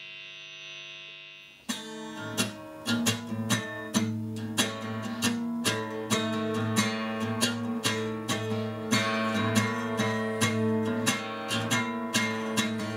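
A steady droning tone, which cuts off about a second and a half in. Then an acoustic steel-string guitar is played with quick, repeated strums and picked notes, its low notes ringing on underneath.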